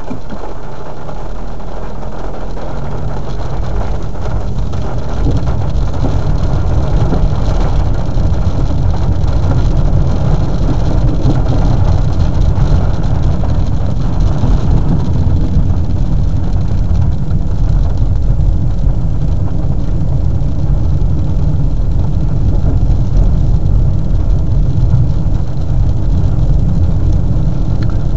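Car cabin noise while driving: engine and tyres giving a steady low rumble, growing louder about five seconds in as the car picks up speed.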